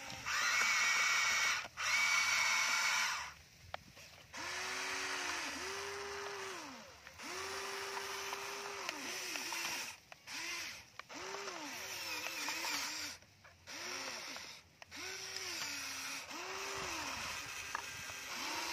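Electric motors of a Huina remote-control excavator whining as it works its boom, arm and bucket. Short whines start and stop every second or two and slide up and down in pitch, each with a hissing gear noise. A louder, higher whine fills the first three seconds.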